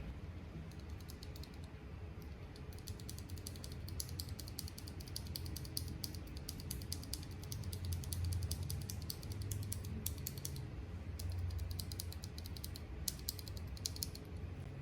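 Fast typing on a Keycool KC84 mechanical keyboard with PBT double-shot keycaps: quick runs of key clicks begin about a second in, with a short pause about two-thirds of the way through, over a low steady hum.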